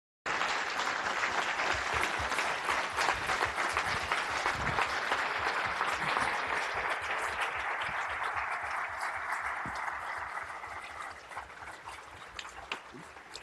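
Audience applauding: dense clapping that starts suddenly and slowly dies away over the last few seconds.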